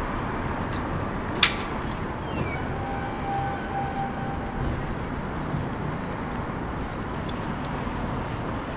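Steady city street traffic noise heard while riding a bicycle along the road, with one sharp click about a second and a half in.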